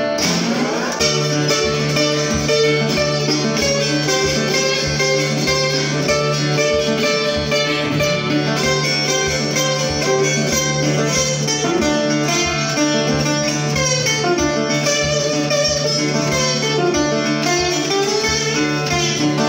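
Live guitar instrumental passage: picked notes moving over a steady low droning note.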